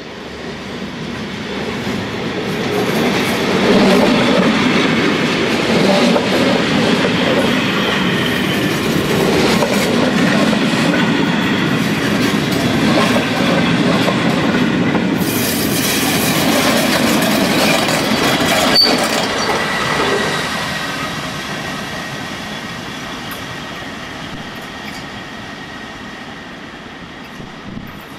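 BLS push-pull passenger train rolling slowly through station points, its wheels clattering over the switches and rail joints with some flange squeal. It grows louder over the first few seconds, holds as the coaches pass close by, and fades away from about twenty seconds.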